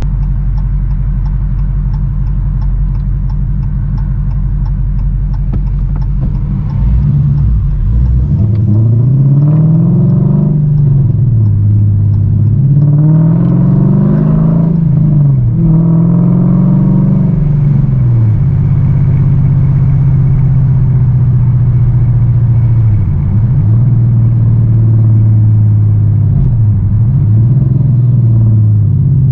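V8 car engine idling steadily, then accelerating away, its pitch rising and dropping three times as it shifts up through the gears, before it settles into a steady cruise with two brief lifts of the throttle near the end.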